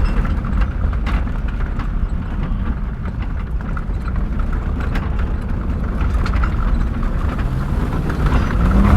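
Land Rover Discovery 2 driving over rough ground: a steady low rumble of the vehicle with scattered knocks and rattles as rocks strike the underside and loose things jangle around inside.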